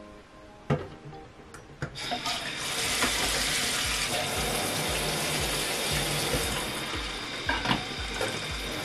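Kitchen tap running water into a plastic container, filling it for a bleach-water soak to lift turmeric stains. The tap comes on about two seconds in, after a couple of knocks, and runs steadily.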